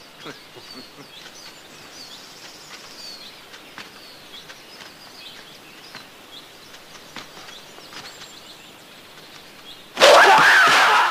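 Faint bird chirps and a few light ticks over a low hiss. About ten seconds in, this gives way to a sudden loud yell.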